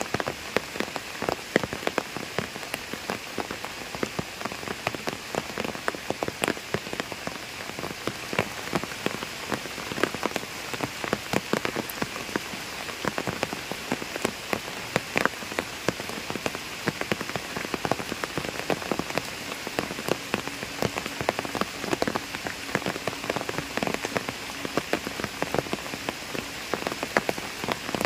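Steady rain falling on a pond, with many sharp, irregular raindrop taps close by.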